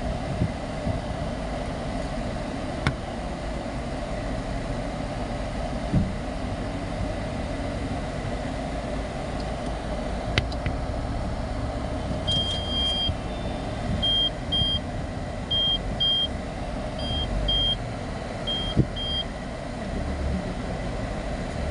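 Car running at low speed, with a steady low rumble of engine and road noise and a couple of sharp clicks. From about halfway through, short high beeps sound in pairs roughly every second and a half for several seconds, the kind a car's parking sensor or reversing warning gives while parking.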